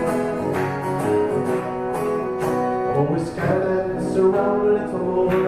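Acoustic guitar strummed in a steady rhythm, with a man singing a country song into a microphone.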